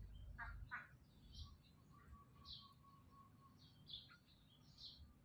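Faint bird chirps: short high calls scattered about once a second over near silence, with a thin steady whistle-like tone through the middle.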